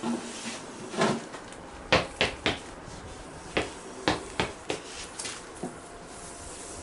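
A series of about ten sharp knocks and clatters of hard household objects being handled and set down, the loudest about two seconds in.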